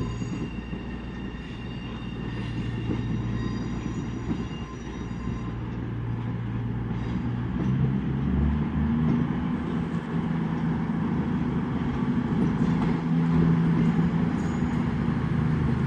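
Class 221 Super Voyager diesel-electric multiple unit arriving at a platform, its underfloor diesel engines giving a low drone that grows steadily louder as it draws in.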